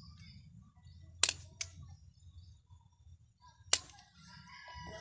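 Bonsai trimming scissors snipping: three sharp clicks, two close together a little over a second in and one more near the four-second mark, over a faint low rumble.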